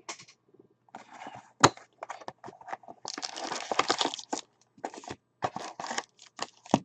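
A trading-card hobby box being opened and emptied: plastic wrapping crinkling and tearing and cardboard being handled. There is a sharp snap about a second and a half in and a longer stretch of crinkling around three to four seconds.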